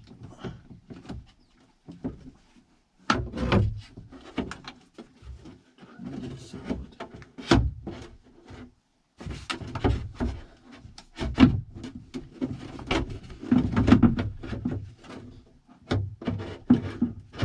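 Irregular clicks, knocks and scrapes of hands working parts inside a car door, twisting a door lock actuator loose from its latch.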